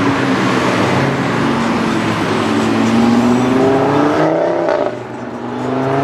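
Audi RS 3's turbocharged five-cylinder engine under acceleration as the car climbs past: the engine note sinks over the first couple of seconds, then rises again, with a brief drop in level about five seconds in before it climbs once more.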